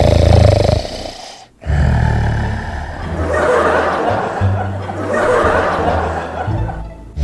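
Loud, exaggerated snoring, one long snore every second and a half to two seconds, over comedic background music.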